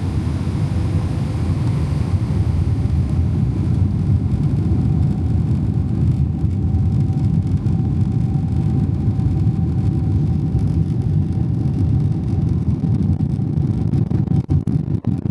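Cabin noise of a Boeing 777-300ER: a steady low rumble of its GE90 engines and airflow, with a faint steady whine that comes in a few seconds in.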